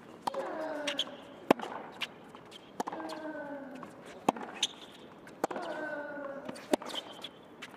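Tennis rally: sharp racket strikes and ball bounces about every second, with a player's drawn-out grunt falling in pitch on three of the shots.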